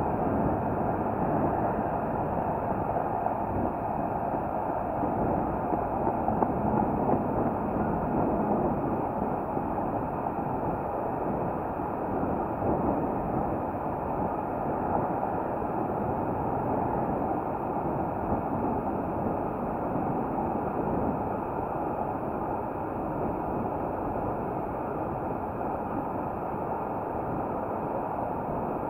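Steady rushing noise of a bicycle being ridden along a paved cycle path: wind over the microphone with tyre rumble on the asphalt.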